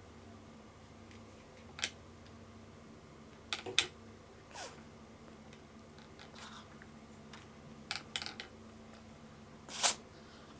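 A cat sneezing: a string of short, sharp sneezes scattered through, the loudest near the end.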